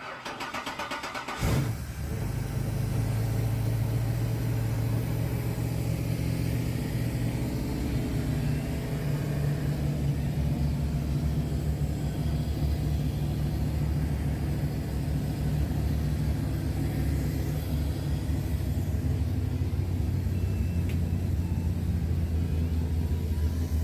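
Ford Ranger's swapped-in V8 engine cranked by the starter for about a second and a half, catching with a sudden loud burst, then idling steadily.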